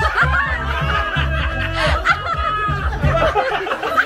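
Party music playing loudly with a steady bass beat, with people laughing over it.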